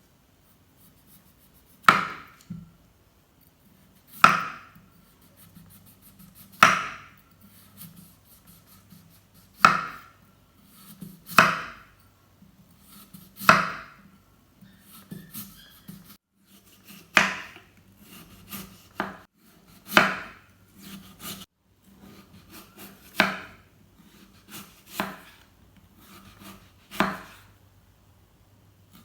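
Kitchen knife slicing raw potato on a cutting board: single sharp cuts striking the board, one every second or two, about fourteen in all.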